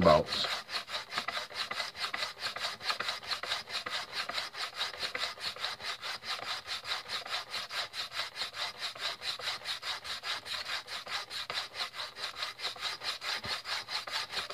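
Hand sanding block rasping back and forth across the end of stiff polyester (Habasit F1) belting held in a bonding jig. It makes an even, rapid rhythm of about five strokes a second. The sanding is grinding the taper wedge onto the belt end for the splice.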